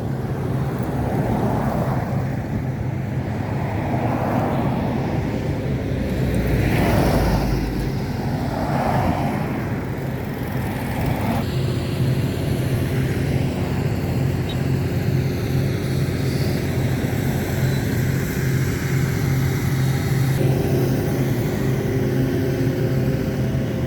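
Steady road traffic noise: vehicle engines humming continuously, swelling a little about seven seconds in.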